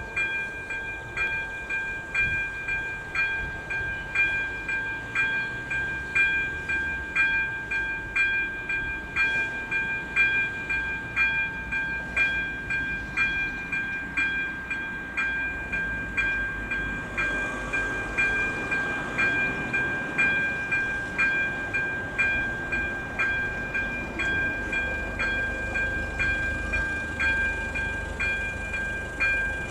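Electronic level-crossing warning bell (ZV-02) ringing a steady, fast repeated chime about twice a second, signalling that a train is approaching and the barriers are about to close.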